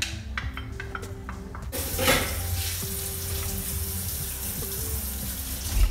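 Chopped onion and garlic frying in hot oil in a pan: a few light clicks as the onion goes in, then a loud sizzle that starts suddenly about two seconds in and carries on steadily. A single knock near the end.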